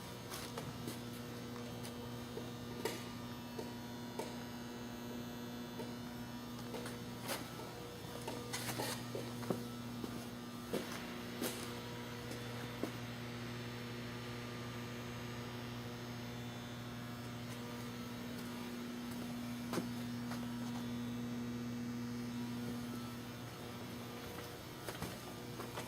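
Steady electrical hum, a low buzzing drone with a higher tone over it, with scattered light clicks and knocks. The higher tone drops out near the end.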